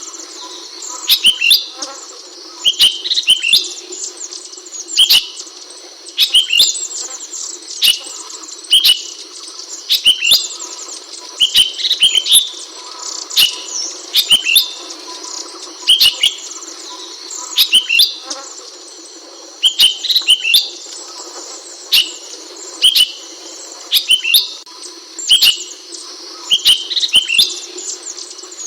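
Ashy bulbul (Hemixos flavala) calling: short, sharp chirping phrases repeated about every one and a half to two seconds. A steady high-pitched hiss runs behind them.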